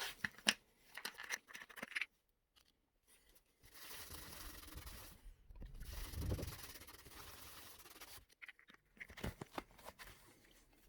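Faint rubbing and scraping with scattered light clicks: the magnet's surface being wiped clean with solvent.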